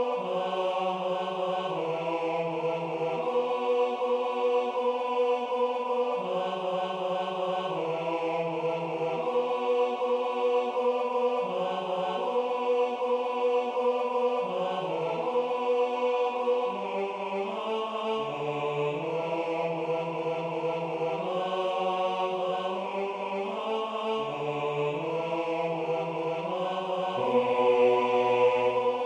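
Four-part choral playback from music notation software: a rehearsal track with the bass line loud and the soprano, alto and tenor softer, moving in steady chords at a moderate tempo. It ends on a longer held chord near the end.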